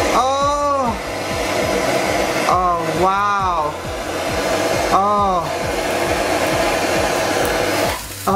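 Steady hiss of a handheld gas torch flame played on a plastic cup, which catches fire. Three short pitched tones, each rising then falling, sound over the hiss near the start, about three seconds in and about five seconds in.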